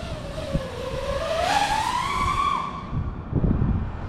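FPV freestyle quadcopter's motors and props whining, the pitch dipping and then climbing with throttle before dropping away as the throttle is cut for a dive, with wind rushing over the onboard microphone.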